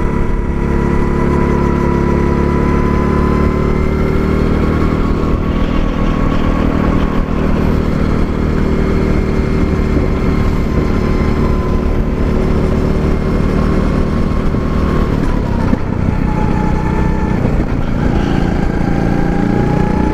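A 270 cc go-kart engine running at speed, heard from on board the kart. Its pitch holds fairly steady, dips about three-quarters of the way through, then climbs again near the end as the kart accelerates.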